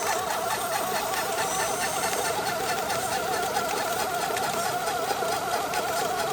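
A steady machine sound: a warbling whine with a fast, even pulse that runs on without a break.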